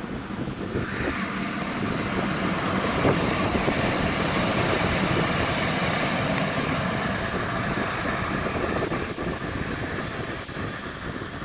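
A PKP class ET42 twin-section electric locomotive passes close by with no train behind it: its wheels rumble over the rails, with scattered clicks at rail joints. The sound grows louder over the first couple of seconds, holds, then fades as the locomotive moves away, with a faint high wheel squeal near the end.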